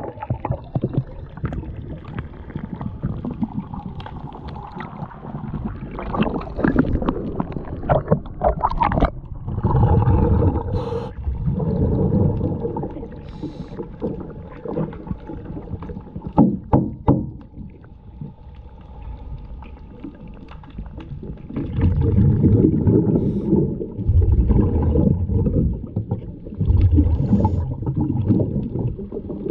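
Underwater sound of a diver breathing through an air-hose regulator: exhaled bubbles rumble in bursts every few seconds over a muffled underwater hum, with scattered clicks and knocks from handling against the hull.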